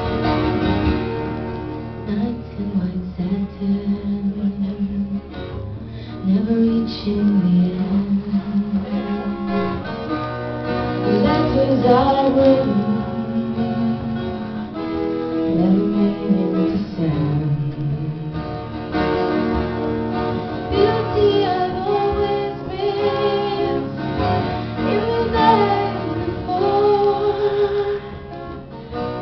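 Live twelve-string acoustic guitar played through a song, with a woman singing over it.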